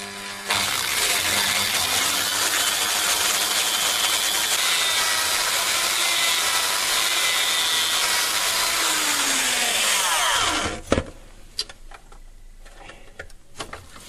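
Corded hammer drill (K-1503S) running steadily, boring a 4 mm bit into a wooden handle held in a vise, for about ten seconds. Then it winds down with a falling pitch as the trigger is released.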